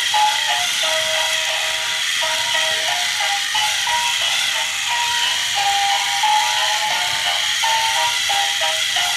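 Background music: a simple melody of short stepped notes, played continuously over a steady hiss.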